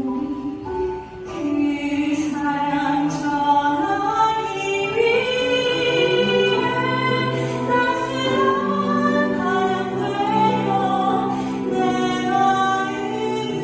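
A woman singing a Korean Catholic praise song into a microphone through a PA, holding long, gliding notes over a sustained accompaniment.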